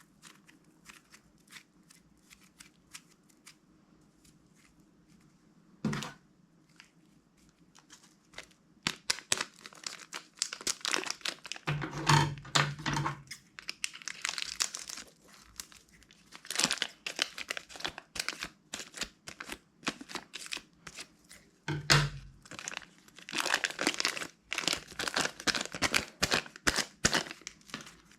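Slime being worked by hand, with small crackling pops and clicks. The clicks are sparse at first, then come in dense crackling runs from about nine seconds in, with a few soft thumps.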